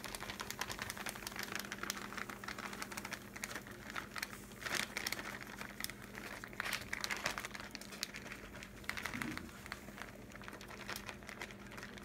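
Plastic bag of shredded cheese crinkling, with irregular light ticks and rustles as the shreds are sprinkled over baked fries on a metal baking sheet.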